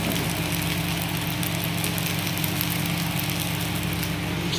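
Chakuli pitha batter sizzling in a nonstick frying pan on a gas stove, a steady fine hiss and crackle, over a steady low machine hum.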